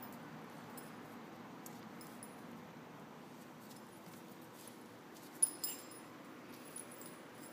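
Quiet steady background hush. About five and a half seconds in come two quick metallic jingles, with a fainter pair a second later, from a puppy's harness and leash hardware as it moves while pawing at a cockroach.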